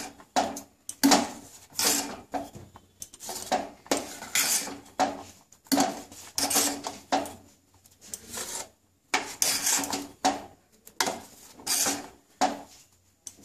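Steel spoon scraping round the bottom and sides of a stainless steel pot while stirring thick milk-and-rice pudding, in repeated strokes roughly two a second. The stirring is constant to keep the thickening milk from sticking to the bottom.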